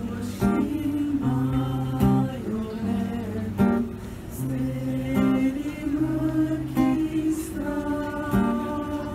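A mixed choir singing a Slovene partisan song, accompanied by a strummed acoustic guitar, with a strong chord struck about every second and a half.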